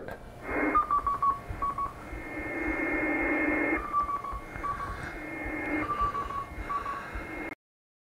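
The OSCAR 1 amateur satellite's beacon heard through a ham radio receiver: a single tone near 1 kHz keyed in short Morse beeps, a quick run of four followed by two ("HI"), then more beep groups, over steady receiver hiss. The sound cuts off abruptly near the end.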